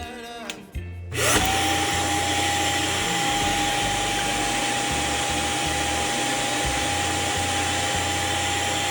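Shark upright vacuum cleaner switched on about a second in: its motor spins up with a quickly rising whine, then runs steadily with a high whine over the rush of air.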